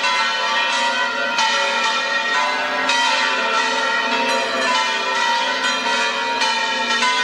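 Several church bells of Seville Cathedral ringing together. Fresh strokes come irregularly, about once a second, over a continuous ring of overlapping tones.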